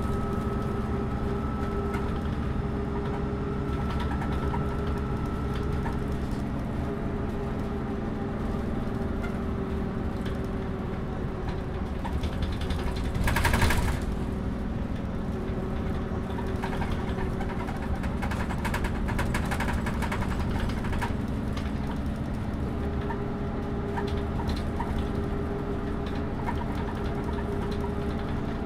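MAN NÜ283 city bus heard from inside while driving: the diesel engine runs steadily while the body and fittings rattle quite a lot. A high whine sounds at the start and returns near the end, and about halfway through a short, loud hiss is the loudest moment.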